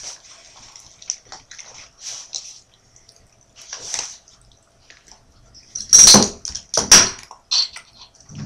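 A person chewing a mouthful of cheese, with small wet mouth clicks and breaths, then two loud sudden noises about six and seven seconds in.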